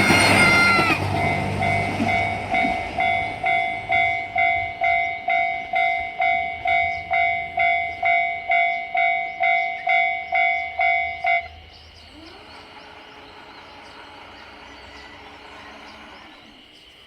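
Japanese level-crossing warning alarm ringing its two-tone clang about twice a second as the train's rumble fades, then cutting off suddenly about eleven seconds in once the train has cleared; a faint steady hum follows.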